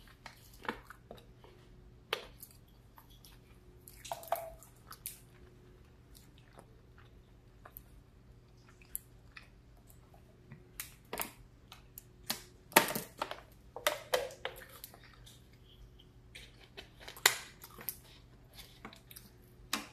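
Close-miked chewing and mouth sounds, with scattered small clicks and a few sharper crackles, the loudest about 13 and 17 seconds in, over a steady low hum.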